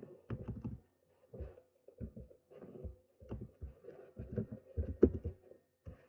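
Keystrokes on a computer keyboard: a dozen or so short, irregularly spaced clicks and taps as a username is typed and corrected, the loudest about five seconds in.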